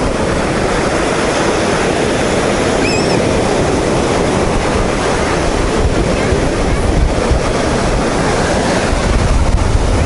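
Rough sea surf breaking continuously on a sandy shore, mixed with strong wind buffeting the microphone.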